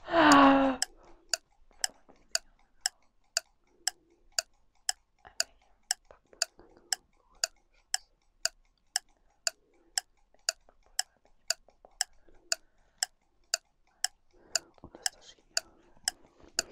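Wind-up kitchen timer ticking evenly, about two ticks a second, as it runs down its minute, with faint murmured reading under it. A short voiced sound with a falling pitch comes at the very start.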